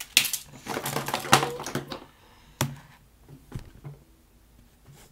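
Handling noise from a desk: objects clattering and rustling as things are moved about, then a sharp click about two and a half seconds in and a few light knocks a second later.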